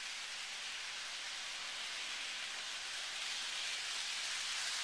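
Steady high-pitched hiss, even and unbroken, with no other distinct sound.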